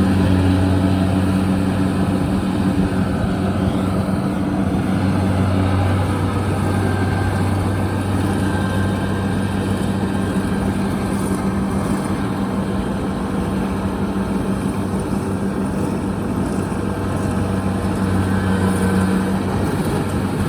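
Kubota DC-73 combine harvester running steadily while cutting rice: a constant engine hum with the noise of the threshing works over it, the machine working through soft, boggy ground.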